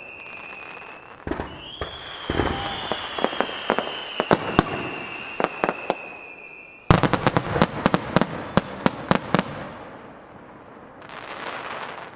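Starmine fireworks going off: a run of sharp cracking bursts over a long high whistle that slides up about two seconds in and slowly falls away. About seven seconds in a loud burst sets off a rapid volley of reports, and a short hiss follows near the end.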